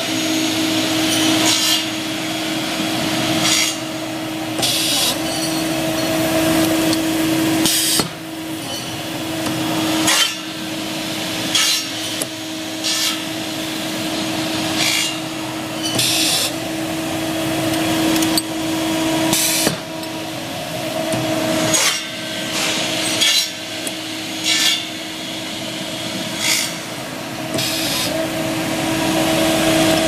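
Metal-cutting machine trimming aluminium furniture-handle blanks: a steady motor hum throughout, with a short sharp cutting stroke about every one and a half to two seconds.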